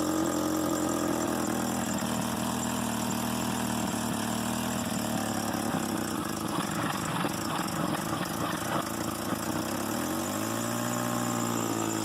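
Car engine idling roughly, with an uneven beat, the sign of a misfire the owner is chasing. Near the end the engine speed rises a little and holds.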